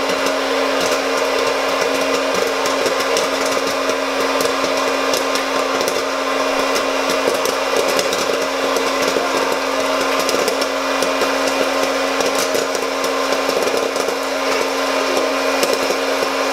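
Hot-air popcorn machine running: a steady fan-motor hum and rush of hot air, with kernels popping and popped corn clicking as it is blown out of the chute into a glass bowl.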